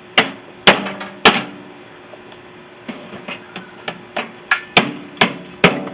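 Hammer blows on the sheet metal of a microwave being broken apart for scrap, each strike ringing briefly. Three hard strikes in the first second and a half, a few light taps in the middle, then a quicker run of blows near the end.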